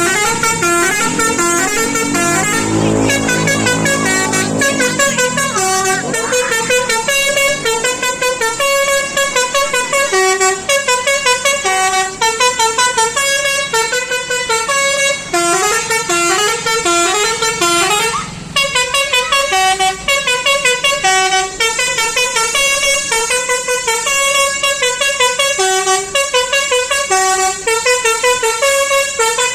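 Bus's basuri telolet horn, a multi-tone musical horn, playing quick stepped melodies over and over, with a lower drone under the first few seconds and a short break about 18 seconds in.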